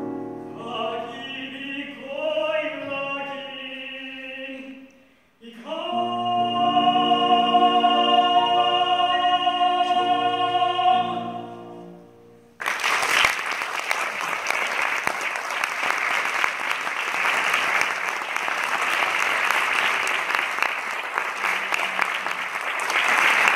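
Male classical singer with grand piano closing a song: a last phrase, a brief pause, then one long held note over sustained piano. About halfway through, applause breaks out suddenly and keeps going.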